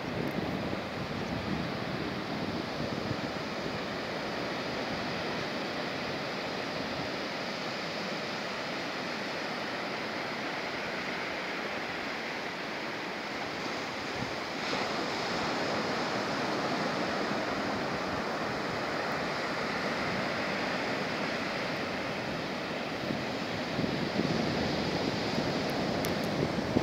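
Surf breaking and washing up a sandy beach in a steady rush, with some wind on the microphone, the low rumbles strongest near the end.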